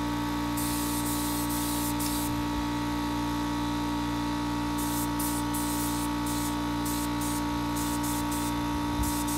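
Air-powered gravity-feed spray gun spraying primer in on-off bursts of hiss as the trigger is pulled: one pass of about a second and a half near the start, then a run of short bursts from about five seconds in, over a steady hum.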